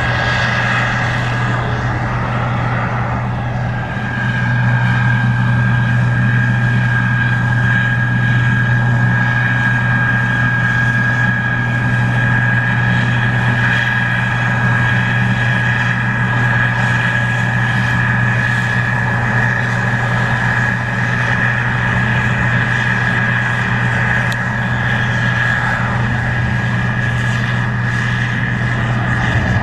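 Case IH 2388 Axial-Flow combine running steadily while harvesting corn: a constant low engine drone with a steady high whine above it, growing slightly louder about four seconds in.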